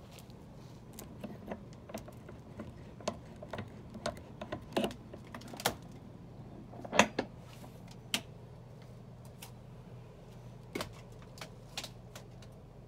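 Metal barrel-bolt gate latch on a wooden shed door being worked and the door pulled open: a scatter of sharp metallic clicks and clanks, the loudest about seven seconds in.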